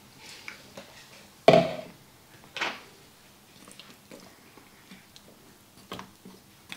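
Kitchen handling sounds at a crock pot: a sharp clunk about a second and a half in, a short scrape or swish a second later, then a few light clicks of a spoon in the crock pot's ceramic insert as the potatoes and carrots are settled into the broth.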